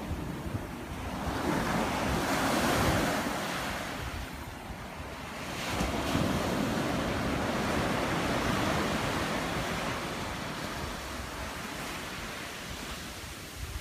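Ocean surf breaking and washing up a sandy beach, swelling twice: once about two seconds in and again, longer, from about six seconds in. Wind buffets the microphone underneath.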